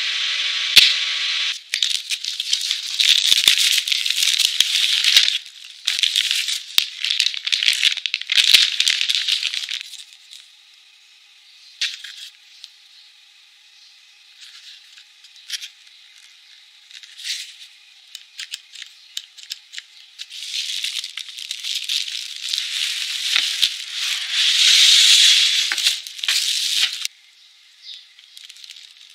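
Plastic and cardboard packaging rustling and crinkling as a welding machine is unpacked. The noise comes in two long stretches, with a quieter middle part of scattered light clicks and taps.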